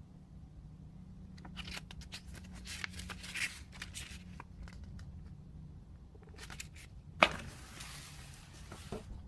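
Handling noises from unpacking: packaging rustling, with scattered clicks and knocks. A sharp knock comes about seven seconds in, followed by a couple of seconds of rustling. A steady low hum sits underneath.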